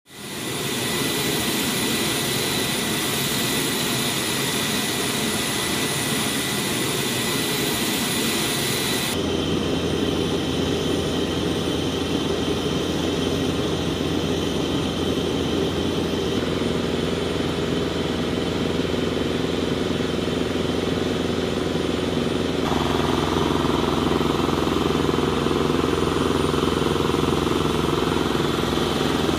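Steady flight-line engine noise from a jet aircraft or its ground power equipment running, with high whining tones in the first part. It changes abruptly about nine seconds in, and again near the end, to a lower, heavier hum.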